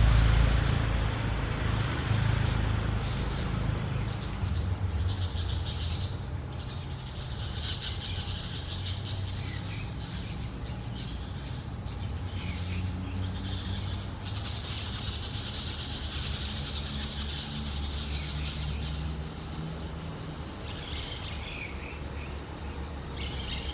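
Birds chirping and calling in long runs of high, rapid notes, over a steady low rumble.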